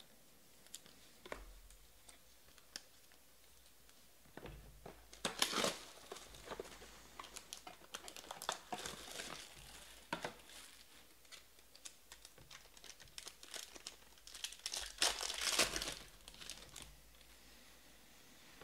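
Foil wrapper of a 2019 Panini Contenders Optic football card pack being torn open and crinkled, in irregular crackly bursts that are loudest about five seconds in and again about fifteen seconds in. A few light clicks from handled cards come before it.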